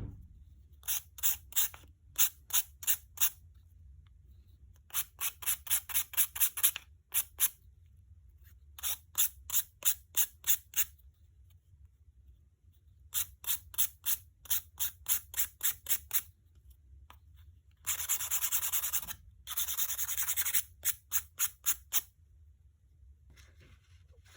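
Nail file rasping back and forth over gel polish on a fingernail, filing the gel off by hand. It comes in runs of quick strokes, about two or three a second, with short pauses between runs, and there are two longer unbroken stretches of filing near the end.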